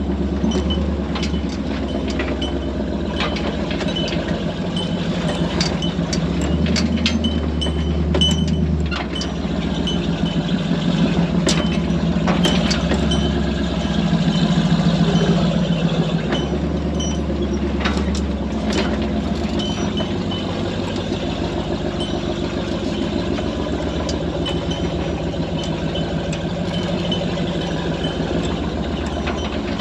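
Off-road tow truck's engine running at a slow crawl, rising and falling with the throttle, with frequent sharp clanks and rattles from the truck and its rigging as it carries a side-by-side slung from the boom over rough rock.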